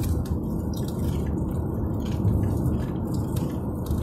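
Steady low rumble of road and engine noise inside a moving car's cabin, with a few faint light clicks.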